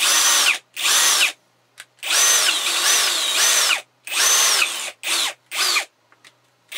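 FERREX Pro 40V brushless cordless combi drill run in about six short trigger bursts. Each burst starts and stops abruptly, and its high whine drops in pitch as the motor winds down.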